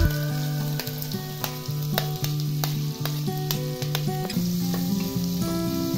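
Chopped onions sizzling as they drop into hot oil in a pot, with sharp clicks of a steel spoon scraping them off a steel plate, over background music.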